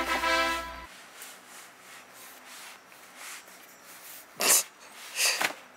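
Background music cuts off about a second in; then faint rustling as cardboard flat-pack boxes are handled and shifted, with two short, loud swishes a little under a second apart near the end.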